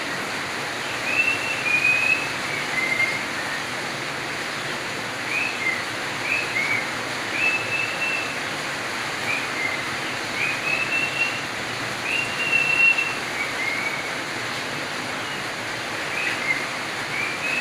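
Budgerigar giving short, high whistled calls, some held level and some gliding down, in loose runs with a few pauses. A steady hiss runs behind them.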